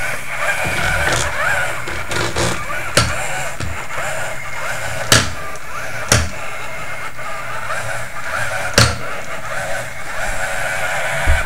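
Parallax Scribbler 2 robot's small geared drive motors whirring steadily as it drives and turns on a tabletop, with a few sharp knocks along the way.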